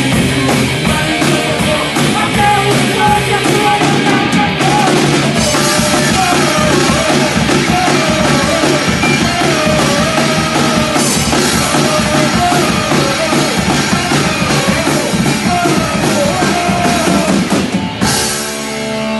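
Loud punk rock song with fast drum kit, distorted guitars and a sung melody line; the music drops out about a second before the end.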